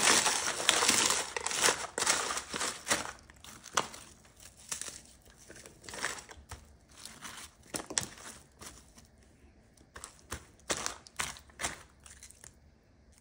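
Snack chips, including ridged potato chips, crushed and crumbled by hand in a foil pan: dense crackling crunches that thin out after about three seconds to scattered separate crunches.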